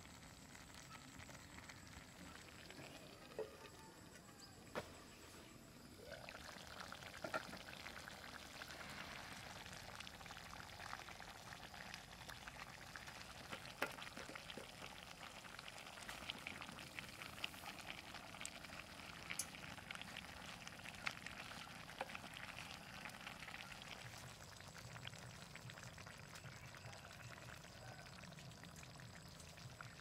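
Faint bubbling and crackling of a meat and vegetable stew simmering in a clay pot, with a few sharp clicks. The crackle grows busier about six seconds in.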